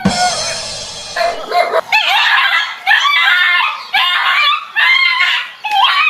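A dog barking and yelping in many short, high calls, after a brief noisy rush in the first second.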